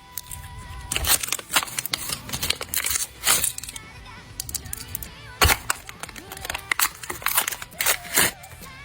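Paper crinkling, crackling and tearing in quick, irregular snaps as a paper blind bag is handled and opened, with faint music underneath.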